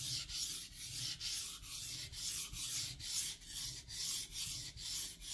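Santoku knife blade stroked back and forth on a wet whetstone, a rhythmic gritty scraping about twice a second as the edge is ground.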